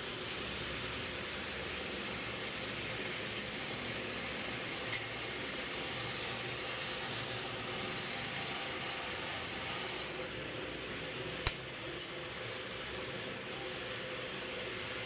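Sharp metal clinks of tools or engine parts being handled during a tractor engine repair: one about five seconds in, then two close together about eleven and a half seconds in, over a steady background hiss.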